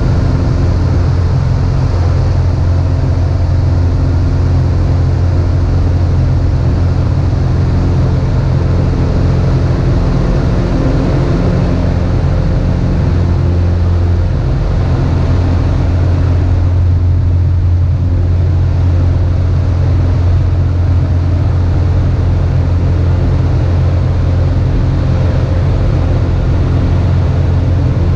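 Cessna 150's four-cylinder Continental O-200 engine and propeller running steadily in flight, heard from inside the cabin as a loud, even drone with a hiss of air above it.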